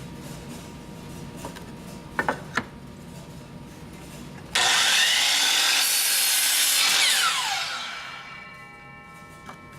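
Power miter saw started and cutting through a wooden board, then the trigger released and the blade winding down with a falling whine. A few knocks of the board being handled come before the saw starts, about halfway through.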